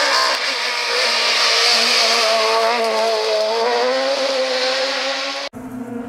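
Rally car engine at full throttle as a small hatchback rally car passes close and accelerates away, its engine note wavering and climbing. About half a second before the end it cuts abruptly to another rally car's engine, quieter and farther off.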